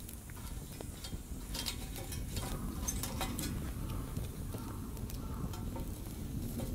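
Light metallic clinks and taps of camp cooking gear being handled, some briefly ringing, over a steady low rumble.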